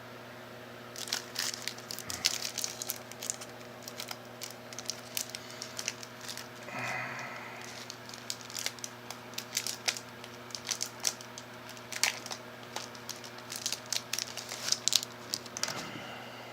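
Board game cards, thick cardboard pieces and their packaging being handled: a long run of crinkles, clicks and light taps, with a brief squeak about seven seconds in, over a steady low hum.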